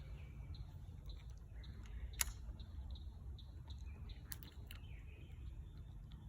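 Quiet outdoor ambience: a steady low rumble, three sharp clicks about two, four and a quarter, and four and three-quarter seconds in, and faint bird chirps.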